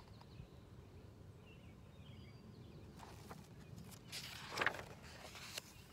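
A paper page of a hardcover picture book being turned: a brief rustle about four seconds in, over faint steady outdoor background noise.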